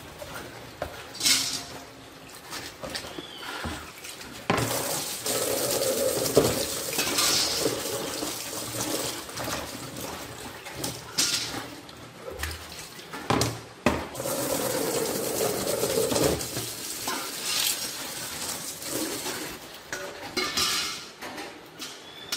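Pumpkin pieces being washed by hand in a plastic basin of water: water sloshing and splashing, with two longer spells of splashing, one about a quarter of the way in and one past the middle, and several short knocks and clinks of the pieces and a stainless steel colander.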